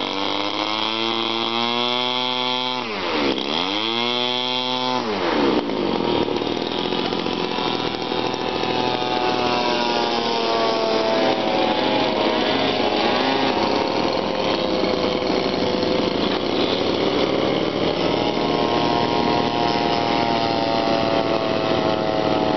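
Engine of a radio-controlled model airplane in flight, a small engine running with a buzzing, chainsaw-like note. Its pitch rises and falls as the plane passes and turns, dipping sharply and recovering about three seconds in.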